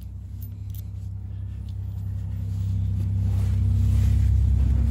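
A low, steady engine rumble with a hum, growing louder to a peak about four seconds in.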